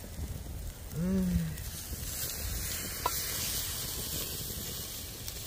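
Rack of ribs sizzling on a hot grill as basting sauce goes on: a steady sizzling hiss, with a short vocal sound about a second in.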